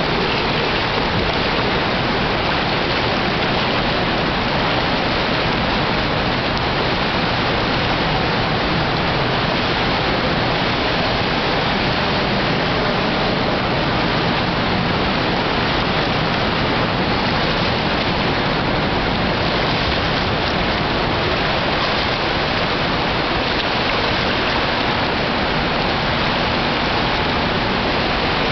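Steady, even rushing noise with no breaks or changes in level.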